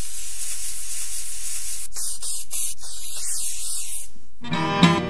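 A steady, loud hissing sound effect like a spray, which turns crackly with a few sharp clicks about two seconds in and fades out near the end. Acoustic guitar music starts just after it.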